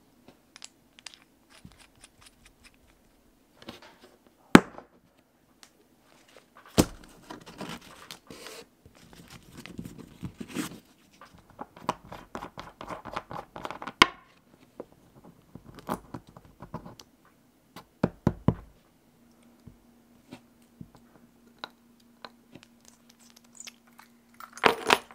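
Small machined aluminum bolt, nut and cap being handled on a wooden workbench: scraping and rustling as parts are turned and a rolled banknote is handled, with scattered sharp clicks and knocks as metal pieces are set down. The loudest cluster of clicks comes near the end. A faint steady hum begins about two-thirds of the way through.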